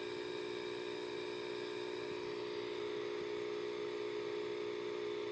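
Steady electrical hum and buzz, several tones held without change, from a running vacuum-tube black-and-white TV set.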